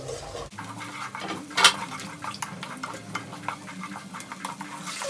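Wooden spatula stirring onions and garlic frying in oil in a pot, with repeated scrapes and taps against the pot over a steady sizzle. One louder knock comes about a second and a half in.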